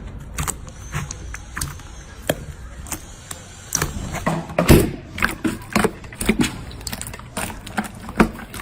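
Slime being squished and poked by hand, a run of irregular sticky clicks and pops that is busiest and loudest about halfway through.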